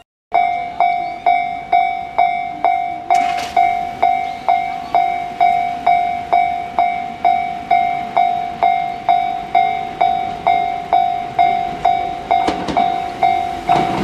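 Japanese railway level crossing's electronic warning bell ringing a steady single-tone clang about twice a second, each strike fading before the next: the signal that a train is approaching. Near the end the rumble of the approaching Tobu Isesaki Line train rises beneath it.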